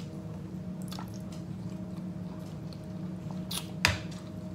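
Close mouth sounds of a person chewing a mouthful of chicken vegetable soup, wet and squishy, with small clicks. A single sharp click about four seconds in is the loudest sound.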